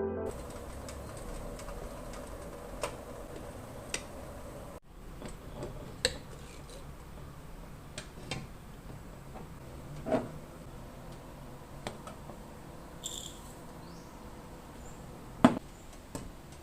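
Scattered light clicks and knocks of kitchen items being handled and set down, one every second or two over a low steady background hiss, with a sharper knock near the end.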